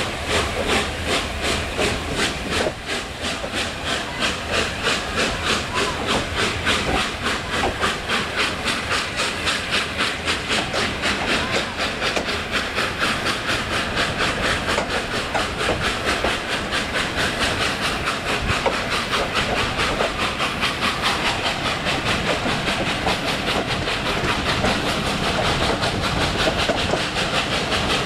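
Steam locomotive working under steam, its exhaust beating in a rapid, even rhythm over a steady hiss of steam.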